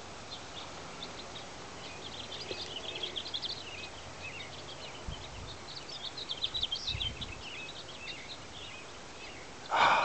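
Small birds chirping and twittering in quick, repeated short notes, with brief gusts of wind buffeting the microphone about five and seven seconds in.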